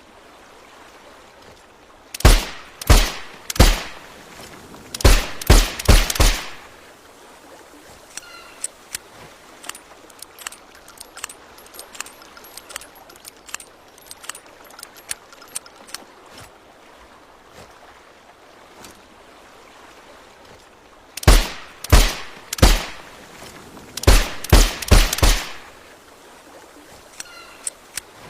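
Suppressed Nagant M1895 revolver fired in two strings of seven shots: three shots, a short pause, then four more, twice over. Light clicks and rattles sound between the two strings.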